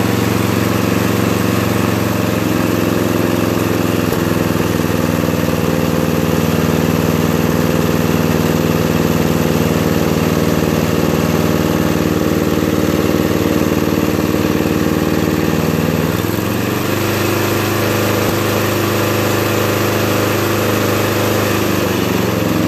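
Briggs & Stratton PowerBuilt 12.5 riding-mower engine running steadily after a carburetor cleaning and oil change, no longer stalling. About three quarters of the way through it settles to a slightly lower speed as the throttle is pulled back, yet it is still running fast at the lowest setting.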